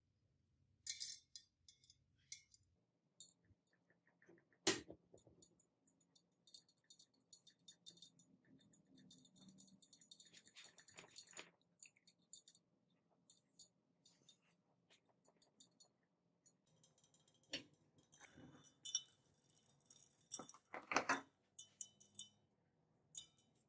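Metal watch bracelet links jingling and clicking as they are handled and lowered into a glass beaker, with a few sharper knocks, the loudest about five seconds in.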